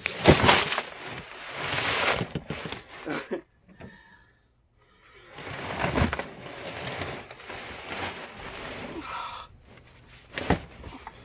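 Shovel scraping and knocking in a bin while heavy, wet sludge is scooped out: sharp knocks near the start, about six seconds in and near the end, each followed by rough scraping.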